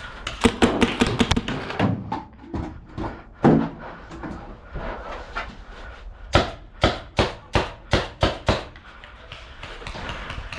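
Paintball markers firing: a rapid burst of shots about half a second in, a few scattered shots, then a steady run of about seven shots near the end, roughly three a second.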